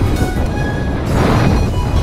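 Background music over a steady rush of sea and wind noise, with a louder wash of noise swelling about a second in.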